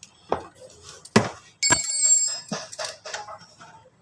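Metal tools and engine parts knocking and clinking during hand work, with a sharp knock about a second in and a short bright metallic ring just after the middle.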